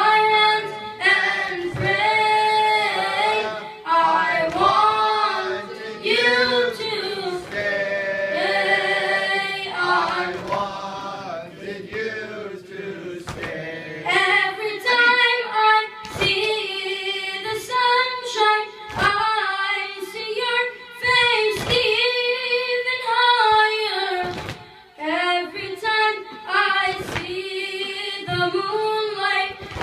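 A boy chanting a latmiya, a Muharram lament, into a microphone in long held, bending lines, with occasional sharp knocks in the second half.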